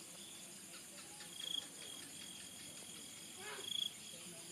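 Insects chirring steadily, with a thin, high, steady call over them that swells loud twice, about a second and a half in and near the end.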